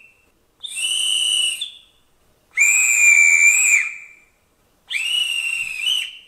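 Shunting-signal whistle blasts played by the ESU LokSound 5L sound decoder of a Gauge 1 Köf II model locomotive. There are three separate high whistle tones of about a second each, the middle one slightly longer and the last wavering in pitch near its end. The tail of an earlier blast is heard at the very start.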